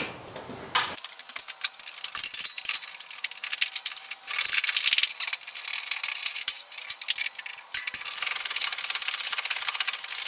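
Hand tools working the truck's front-clip bolts: rapid metallic clicking and rattling, with stretches of hiss about halfway through and again near the end.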